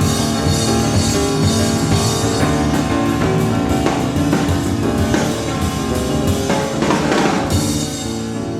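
Live jazz piano trio playing: piano and bass over a busy drum kit, with a cymbal wash swelling about seven seconds in. Recorded from an FM radio broadcast on cassette tape.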